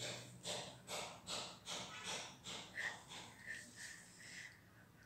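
Women's breathy laughter: a run of short gasping pulses, about three a second, fading out after about three seconds, followed by a few faint high squeaks.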